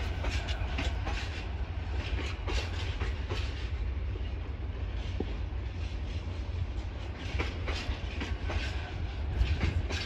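Freight train of bogie tank wagons rolling past, its wheels clicking over the rail joints again and again over a steady low rumble.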